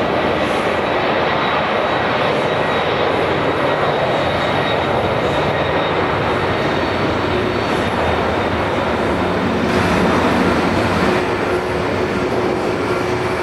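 Boeing 747-400's four General Electric CF6-80C2 turbofans running as the jumbo jet moves past on the ground: a loud, steady jet roar with a thin high whine over it, swelling slightly near the end.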